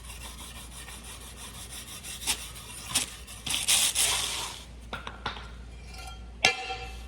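Quick, even scraping or rubbing strokes on the skid steer's metal, then a few louder scrapes, and about six seconds in a sharp metal clank that rings briefly.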